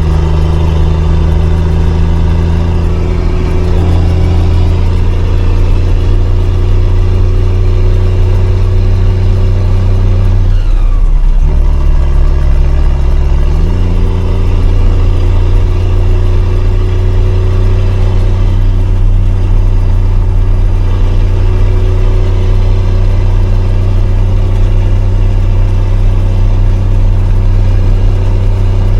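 A 5-ton army truck's engine running steadily under load as the truck drives uphill. Between about ten and fourteen seconds in, the engine note drops lower for a few seconds and then comes back up.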